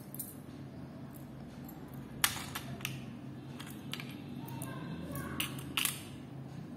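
Silver toe rings clicking and clinking as they are handled and set down on a small digital pocket scale: a handful of light, sharp ticks spread out, the loudest a little over two seconds in.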